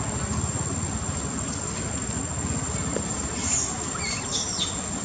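Outdoor ambience: a steady low rumble under a constant high-pitched whine, with a few brief high squeaks about three and a half seconds in.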